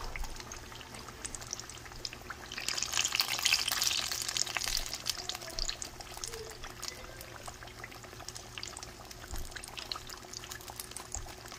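Battered banana slices sizzling and crackling in hot oil in a skillet, the crackle growing louder for a couple of seconds about three seconds in.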